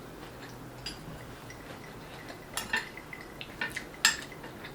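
Eating utensils clinking against plates and bowls, a handful of short sharp clinks with the loudest near the end.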